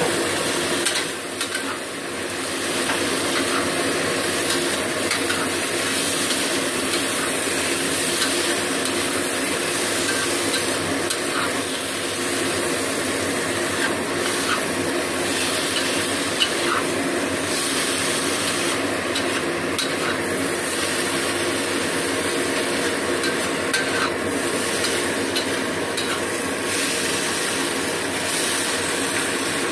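Sliced bitter gourd and tomato sizzling as they are stir-fried in a wok, with a metal spatula scraping and clinking against the pan now and then.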